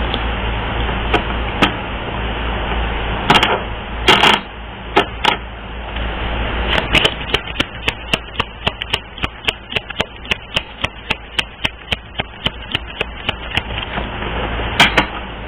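Tarot cards being shuffled by hand. A few separate sharp clicks come first, then a quick, even run of card slaps at about three a second, over a steady hiss.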